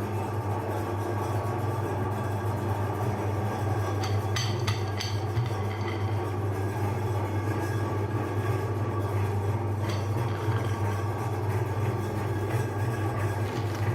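A machine running with a steady low hum, with a few short clicks about four to five seconds in and once more near ten seconds.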